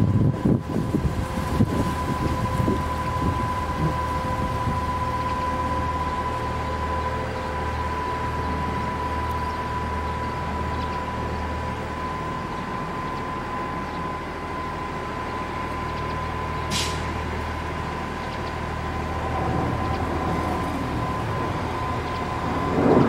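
Railway crane engines running steadily under load as they lift a derailed S-Bahn car, a low drone with a thin, steady whine above it. A brief hiss about two-thirds of the way through.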